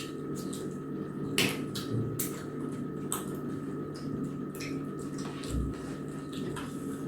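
Eating at a table: scattered small clicks and clinks of plates and hands on food, with soft wet chewing sounds, over a faint steady hum.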